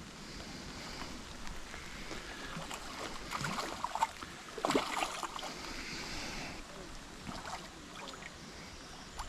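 Water splashing and sloshing as a small mirror carp is drawn in at the lake's edge, with a few louder splashes about halfway through.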